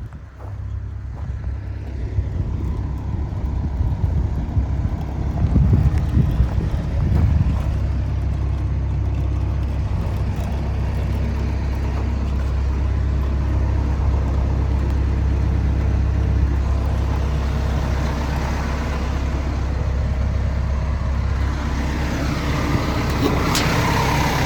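Kobelco SK210LC-9 excavator's Hino diesel engine running steadily with a low, even drone, growing louder over the first few seconds.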